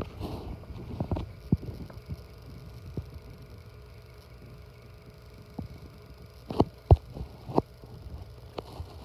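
A low steady hum with scattered soft knocks and clicks every second or two, the loudest two close together near seven seconds in.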